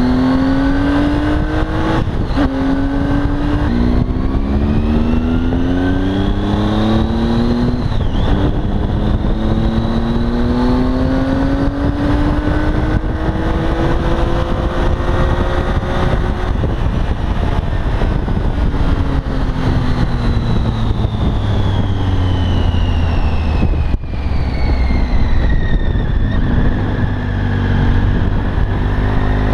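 2016 Triumph Tiger 800 XCA's inline-three engine through a new Leo Vince aftermarket exhaust, heard from the rider's seat. It accelerates through several quick upshifts, pulls steadily, eases off to slow down, then picks up again near the end, with wind noise underneath.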